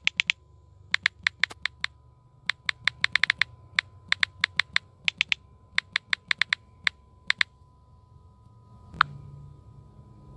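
Smartphone on-screen keyboard key-press clicks as a sentence is typed: a quick, uneven run of sharp taps that stops about seven and a half seconds in, followed by one louder click near the end.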